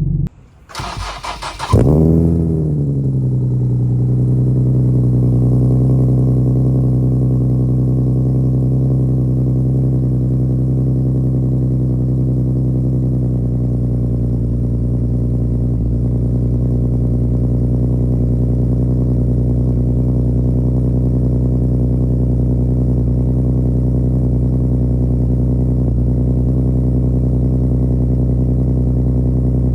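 Infiniti G37's 3.7-litre V6 cold-starting through an ISR single exhaust. The starter cranks for about a second, then the engine catches with a loud flare that quickly drops away and settles into a steady cold idle.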